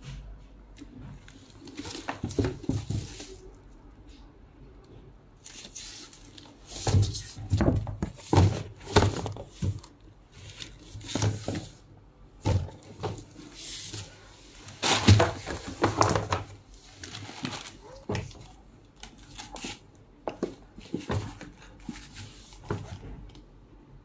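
Handling noise of a suede and leather handbag being moved and turned over: irregular bursts of rustling with soft knocks, busiest in the middle stretch.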